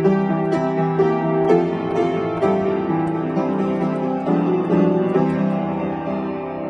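Upright piano playing a simple piano arrangement from a medley of animal songs: a melody over chords, with new notes struck about twice a second.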